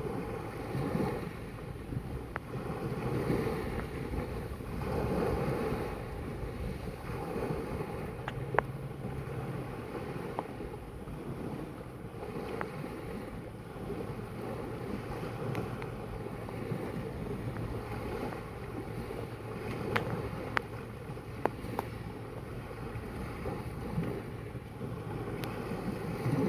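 Sea waves washing and lapping in slow swells, with wind buffeting the microphone. A few sharp ticks or clicks stand out, several of them in quick succession near the end.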